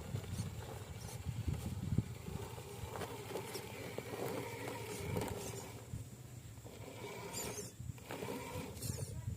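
Radio-controlled scale truck driving through mud: its small electric motor and gears whine, rising and falling, mixed with scraping and clicking from the tyres and chassis.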